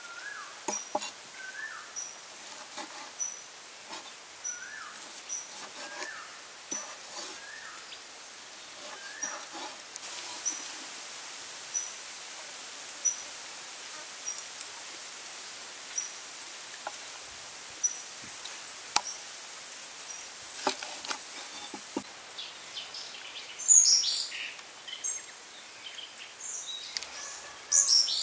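Birds calling, with a short high note repeating about once a second through the first half and lower chirps early on. Scattered light clicks and taps run through it, and a louder cluster of sharp sounds comes near the end.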